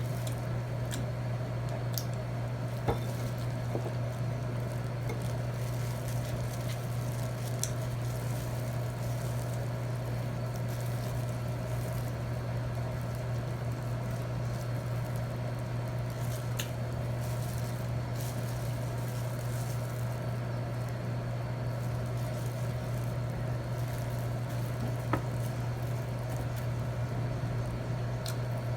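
Eating sounds, chewing with a few sharp clicks of utensils, over a steady low electrical-sounding hum.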